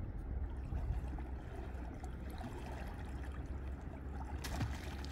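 River water flowing and lapping around a person wading waist-deep, with a brief louder splash about four and a half seconds in as she moves through the water, over a steady low rumble.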